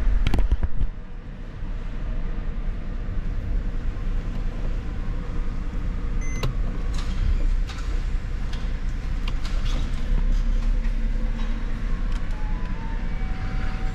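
2011 Mercedes-Benz E300's 3.0-litre V6 petrol engine idling steadily, heard from inside the cabin. A few clicks come in the first second, and a few short high tones near the end.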